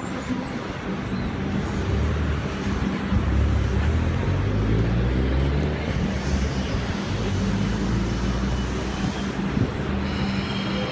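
A large vehicle's engine running steadily close by, over traffic noise; the low drone grows stronger about two seconds in, and a faint high whine joins near the end.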